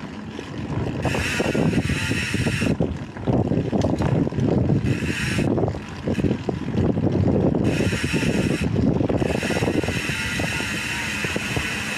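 Wind buffeting the action-camera microphone while a BMX bike is ridden, a loud, fluttering rumble. A higher hiss comes and goes several times.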